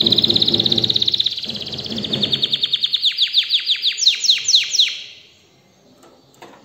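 Domestic canary singing. It opens with a fast, loud trill that slows into a string of sharp, falling whistled notes, and the song stops about five seconds in. A faint knock follows near the end.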